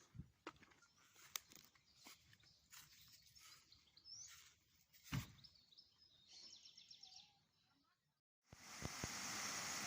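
Faint birdsong: quick trills of high chirps, with scattered light clicks. About eight seconds in it cuts off and a steady rushing noise takes over.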